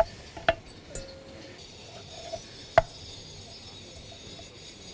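Kitchen knife knocking on a wooden cutting board while slicing abalone: one knock about half a second in and a sharper, louder one near three seconds.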